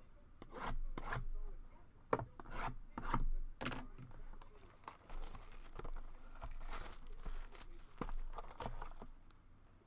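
Trading-card boxes and packaging being handled: rubbing and rustling with a string of light clicks and taps, and a longer rustle in the middle.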